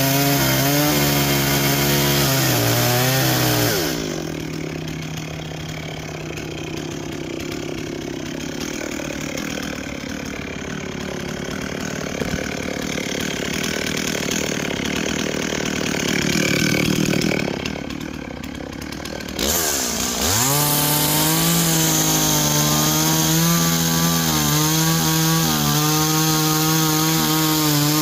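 Two-stroke chainsaw cutting into a cedar log under load. Its engine drops quieter about four seconds in for roughly fifteen seconds, then revs up sharply and cuts steadily again.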